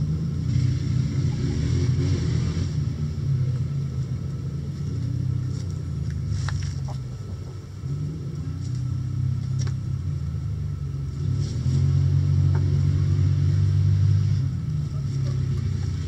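Low, steady rumble of a motor running, louder for a few seconds near the end, with a few faint short higher sounds over it.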